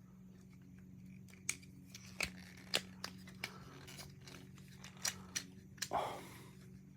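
Hard plastic parts of a Transformers action figure clicking and snapping as its joints and panels are moved: about eight sharp clicks at uneven intervals, grouped around the second and fifth seconds.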